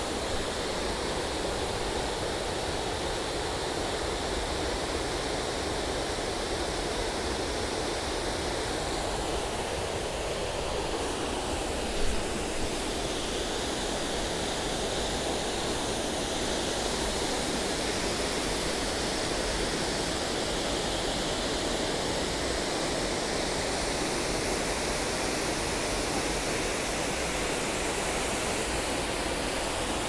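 Waterfall running: a steady rush of falling water, with one brief knock about twelve seconds in.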